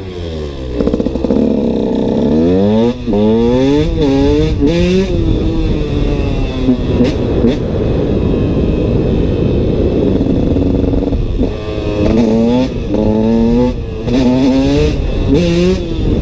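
KTM SX 125's two-stroke single-cylinder engine revving hard under acceleration. The pitch climbs and drops back at each upshift, in two runs of several quick shifts, with a stretch of sustained high revs and wind noise between them.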